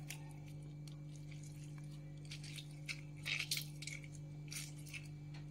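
A lemon squeezed by hand over raw chicken in a steel bowl: a cluster of faint squelches and drips about halfway through, over a steady low hum.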